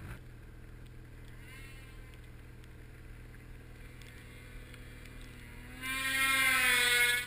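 Snowmobile engine: a low, steady hum, then a loud rev with a slight rise in pitch near the end that cuts off sharply after about a second.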